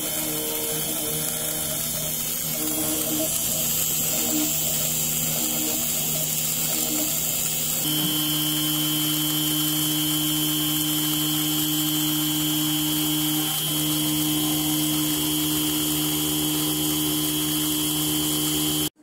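Small BLDC-motor-driven, belt-driven DIY milling spindle running and engraving a copper-clad circuit board: a steady whine. The pitch shifts about eight seconds in and again slightly a few seconds later.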